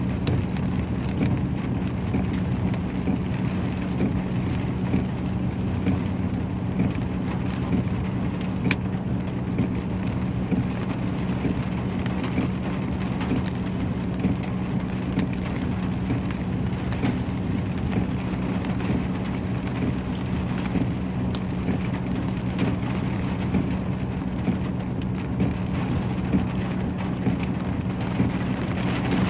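Hail and heavy rain falling, a steady wash of rain with many sharp ice pellet clicks scattered through it, over a steady low hum.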